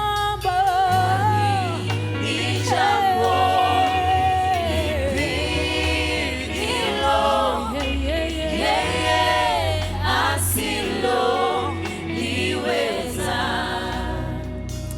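A church worship team and choir singing a Swahili gospel praise song, voices holding long notes over a steady band bass line. The singing eases off near the end.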